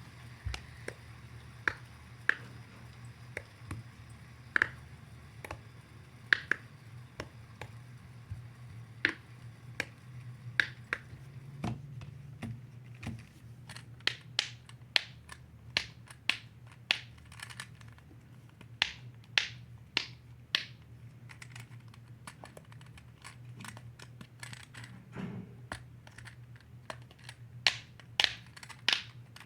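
Hand-held fidget toy clicking: sharp, irregular clicks, sparse at first, then coming faster and louder in clusters from about halfway through.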